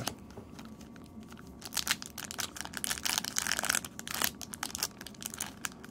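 Foil trading-card booster pack wrapper crinkling and tearing as it is pulled open by hand: a run of irregular crackles that grows busier about two seconds in.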